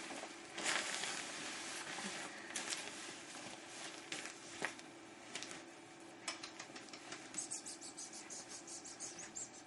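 Rustling and scattered soft clicks, with a quick run of light ticks, several a second, near the end.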